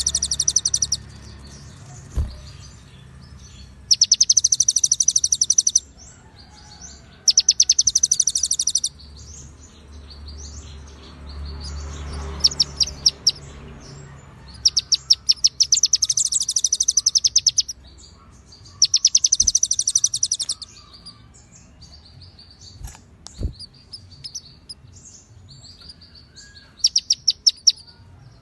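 Songbird training recording of a kolibri ninja (konin) with cililin and ciblek fills: bouts of very fast, high, rattling trills about two seconds long, broken by short pauses with a few softer chirps between them.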